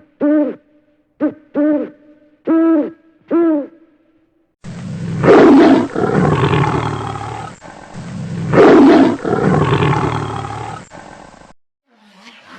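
Animal calls: about six short hoots, each rising and falling in pitch, in the first four seconds or so. Then a loud, rough roar with two strongest peaks that trails off before the end.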